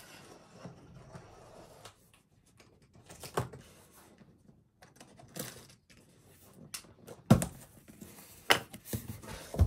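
Handling noise at a table as an unboxing begins: scattered light taps, clicks and rustles, with a few sharper knocks near the end.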